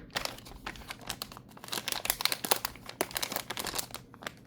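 Toy blind-bag packaging crinkling and rustling as it is handled and opened: a rapid, irregular run of crackles that thins out near the end.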